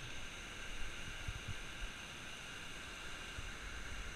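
Steady rush of water pouring over a concrete low-head dam spillway.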